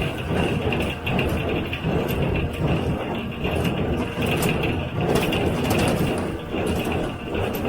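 John Deere 348 square baler with a #42 pan kicker ejector running while baling hay, pulled by its tractor: a steady mechanical clatter of repeated knocks over a constant high whine.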